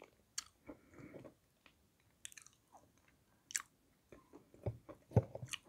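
Close-up crunching and chewing of dry, powdery Malomikhailovsky edible clay: a few crisp bites and crackles among quieter chewing, loudest about three and a half and five seconds in.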